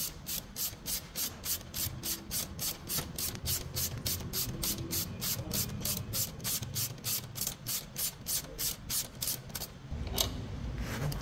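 Ratchet wrench clicking steadily, about three to four clicks a second, as it backs out a motorcycle frame bolt; the clicking stops about ten seconds in, followed by a couple of single clicks.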